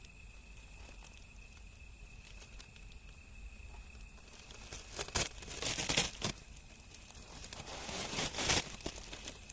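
Wood fire burning with faint scattered crackles, and two louder bursts of rustling, crackling noise about five and eight seconds in.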